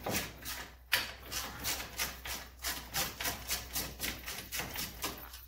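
Half-inch hand ratchet clicking in a quick even rhythm, about four or five clicks a second, with one sharper click about a second in, as a stiff brake caliper bolt held with thread locker is worked loose.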